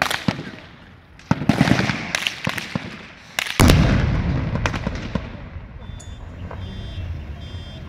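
Gunshots during a cash-in-transit heist: a string of sharp cracks with a rapid cluster about a second and a half in. A heavier bang comes about three and a half seconds in, followed by a long low rumble.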